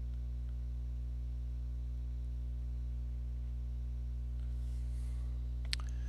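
Steady low electrical hum with a buzz of evenly spaced overtones, the mains hum of the recording setup. A single short click near the end.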